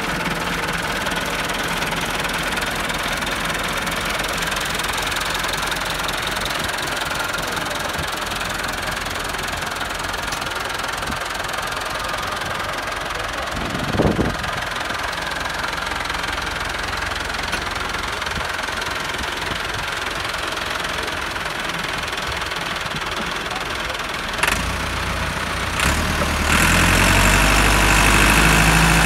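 Massey Ferguson tractor diesel engines running steadily, with a couple of short knocks. Near the end a louder, deeper engine sound comes in as the second tractor works to pull the stuck tractor out of the mud.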